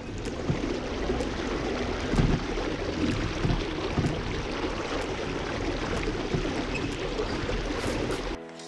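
Steady rush of river water moving around a small boat, with scattered low thumps and a few light knocks.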